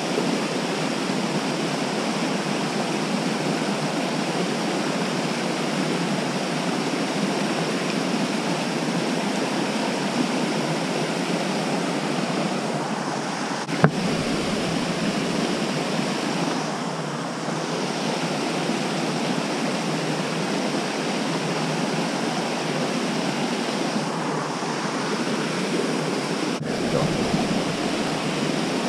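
Steady rush of a mountain trout stream spilling over small cascades between boulders, with a single sharp click about halfway through.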